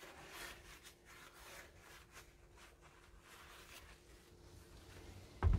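Faint, irregular rubbing and scraping as the grinder's parts are handled during dismantling, with a short low thump just before the end.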